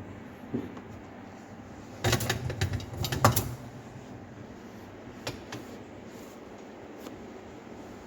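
Cloth being wiped over dishwasher parts, with a burst of rubbing and clattering that starts about two seconds in and lasts about a second and a half, then a few single clicks.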